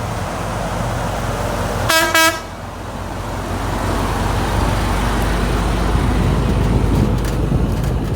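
Delivery truck's engine running with a steady low rumble, and two quick horn toots about two seconds in.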